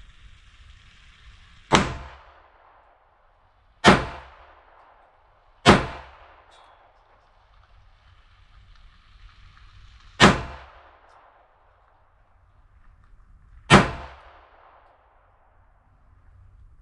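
Five pistol shots from a Polish P-64 in 9x18 Makarov, fired at uneven intervals with longer gaps before the last two, each a sharp crack with a short echoing tail.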